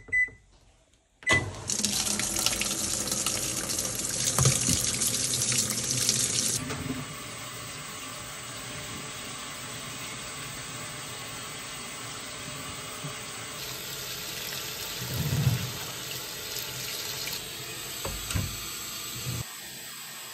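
Hisense top-loading washing machine beeping as it is started, then water rushing into the drum as it fills. The flow is loud for the first few seconds, then goes on quieter and steady.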